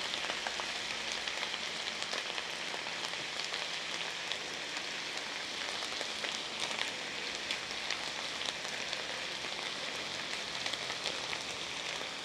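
Chorizo frying in hot oil in an enamel pan, a steady sizzle with scattered small crackles.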